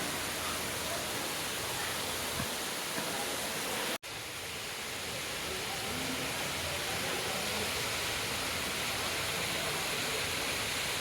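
A three-tiered waterfall rushing steadily, with no lull. About four seconds in it breaks off for a split second, then carries on.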